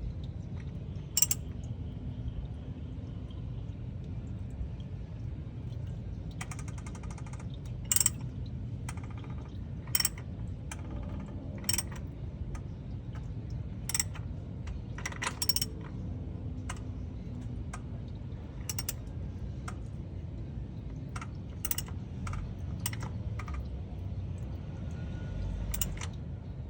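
Small metal hand tools and parts clicking and clinking now and then during oil-change work, with a couple of short runs of rapid ticking, over a steady low hum.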